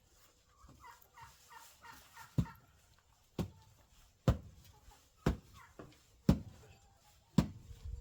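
Pickaxe striking packed ground, six heavy blows about a second apart, breaking up the pen floor. A chicken clucks in quick short notes just before the blows begin.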